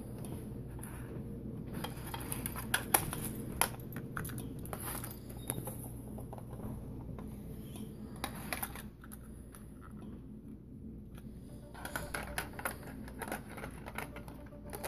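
Plastic clicks and knocks from a Sony My First Sony cassette player and a cassette tape being handled, in three bursts of clicking with short pauses between, over a steady low hum.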